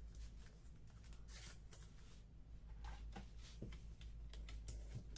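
Faint rustling and light clicks of trading cards being handled, over a steady low hum.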